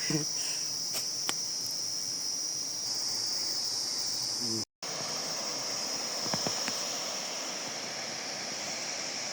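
Crickets chirring steadily in a high, even drone, with a moment of total silence about halfway through where the sound cuts out.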